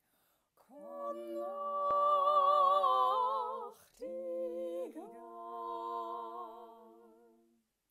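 A woman singing a cappella, with no accompaniment: two long held phrases with vibrato, each starting with an upward scoop. The second fades away near the end.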